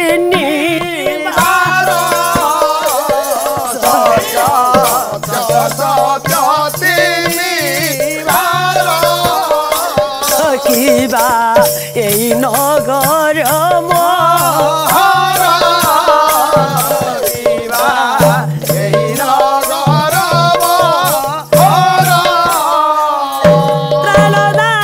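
Music of an Odia pala performance: singing with a steady rattling percussion beat and drum accompaniment.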